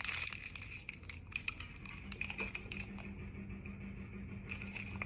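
Plastic snack packaging crinkling and rustling in the hands as a lüdagunr rice-cake snack is unwrapped, a rapid run of small crackles for the first two seconds, then sparser, and a few more near the end.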